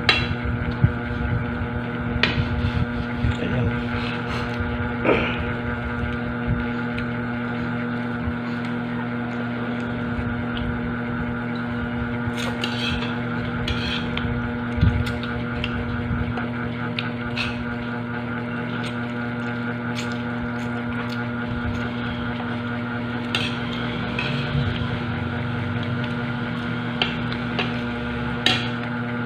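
A steady electrical motor hum with an even, unchanging pitch, with scattered short clicks of a spoon and fork against plates and quiet eating sounds.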